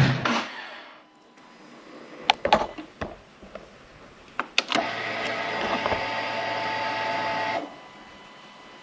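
Ducati SuperSport 939's L-twin engine cutting off right at the start. A few sharp clicks of the ignition key and switches follow. As the ignition comes back on, the fuel pump primes with a steady whirring hum for about three seconds, then stops suddenly.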